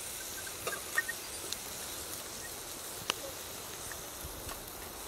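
Wood fire crackling in a Firebox camp stove: a few sharp pops over a steady faint hiss.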